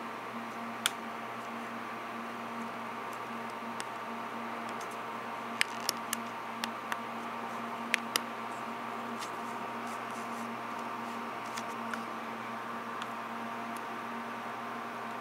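Steady electrical hum and hiss. A sharp click comes about a second in, a quick run of clicks about six to eight seconds in, and a few fainter clicks later.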